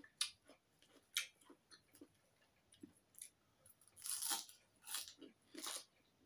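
A person eating: chewing and small crunching mouth sounds, then noodles slurped in, the longest and loudest slurp about four seconds in and two shorter ones after it.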